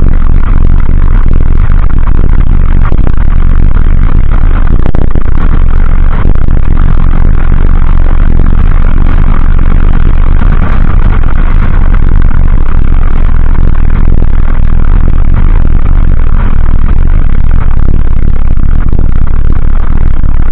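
Loud, steady wind buffeting on the microphone of a stem-mounted camera on a Dualtron Ultra electric scooter at speed, mixed with the clatter and scrape of its tyres and frame on gravel.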